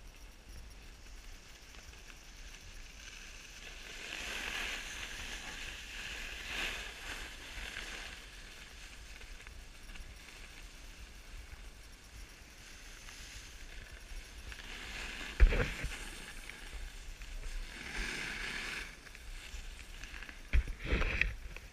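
Snowboard sliding down packed snow, its edge scraping in swells as the rider turns. There are a few sharp knocks, the loudest about three-quarters of the way through and a cluster near the end.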